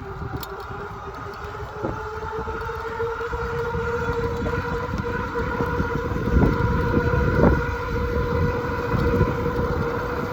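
Electric bike's motor whining steadily under power, its pitch creeping up as the bike gathers speed in fourth gear, with wind rumbling on the microphone and growing louder.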